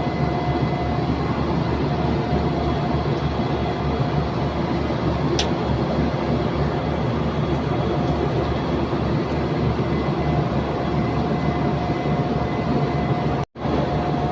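Carrier chiller compressor running: a loud, steady low drone with faint steady whining tones above it. The sound drops out for a split second near the end.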